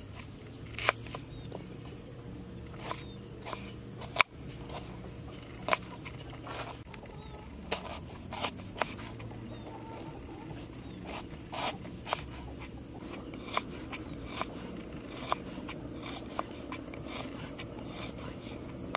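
Knife cutting a peeled root into slices and strips on a wooden chopping board: single sharp chops and knocks at uneven intervals, over a steady low background.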